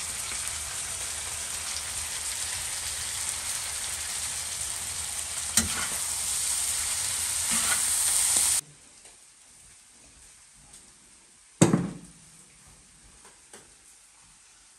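Onions, mushrooms and bull testicles sizzling on a hot iron saj, stirred with a metal spatula that clicks and scrapes against the iron. The sizzling cuts off suddenly about eight and a half seconds in, and one loud knock follows some three seconds later.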